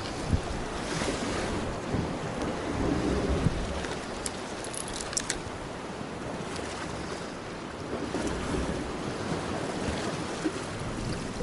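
Wind buffeting the microphone over the steady wash of sea waves, with a few faint sharp clicks about four to five seconds in.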